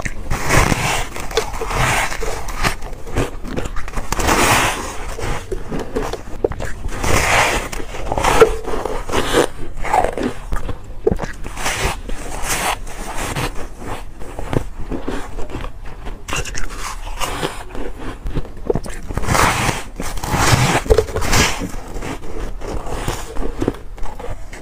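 Close-up biting and chewing of soft, powdery freezer frost: repeated crunches as chunks are bitten off a slab and ground between the teeth, with bunches of louder bites about a second in, near four seconds, around seven to eight seconds and around twenty seconds.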